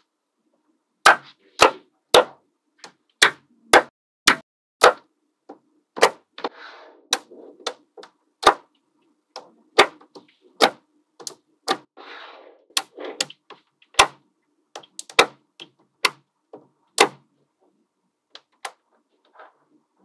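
Small magnetic balls snapping together one at a time with sharp, irregular clicks, and a brief scraping rattle twice as the balls are shifted. The clicks thin out and grow fainter near the end.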